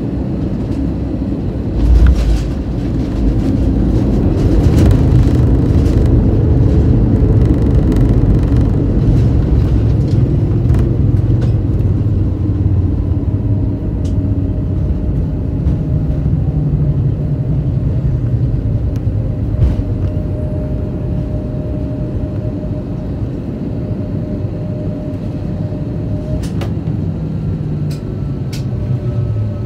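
Airbus A320 landing rollout heard inside the cabin: a heavy low thump about two seconds in as it touches down on the runway, then the engines and rolling rumble grow louder and ease off again as the aircraft slows. Faint steady whines and a few light clicks come in later.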